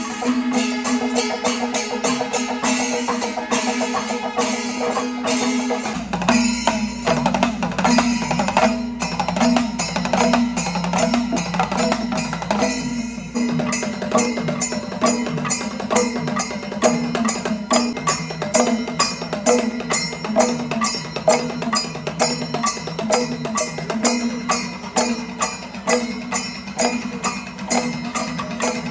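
Kerala temple percussion: chenda drums and small hand cymbals beating a fast, even rhythm over a steady held note.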